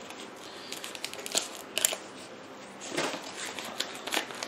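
Packing paper crinkling and rustling as it is handled and pulled from around a wrapped potted orchid, with a few sharp crackles.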